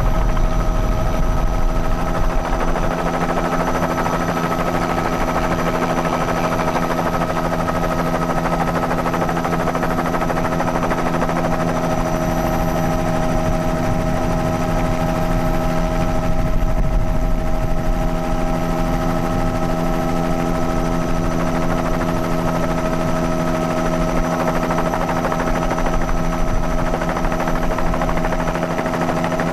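Helicopter rotor and turbine running steadily, heard from on board: a fast, even chop of the blades under a constant whine.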